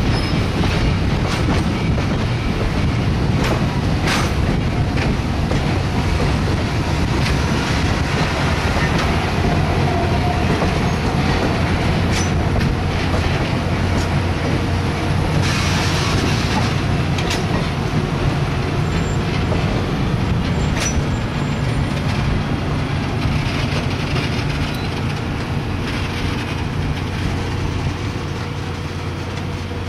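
Passenger train coaches rolling past on the rails: a steady rumble of wheels on track with scattered clicks over the rail joints, easing off near the end as the last car goes by.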